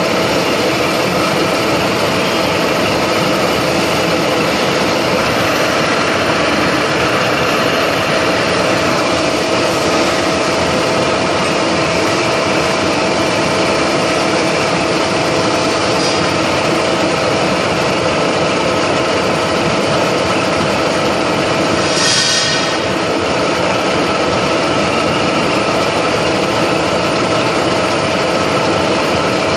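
Milling machine running, its spiral end mill cutting a hexagon flat into a metal fitting on a rotary table: a steady machine noise with a constant tone, and a brief rasping burst about 22 seconds in.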